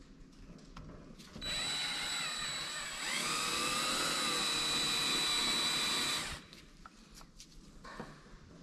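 Cordless drill running for about five seconds, drilling out the plastic rivet heads on a power antenna housing. Its pitch wavers and it picks up speed about three seconds in, then stops. Light handling clicks come before and after.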